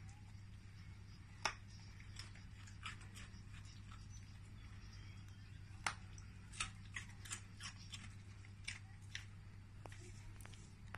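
A dog crunching a raw carrot: irregular sharp crunches and snaps, the loudest about a second and a half in and about six seconds in, with a run of quicker crunches after that, over a steady low hum.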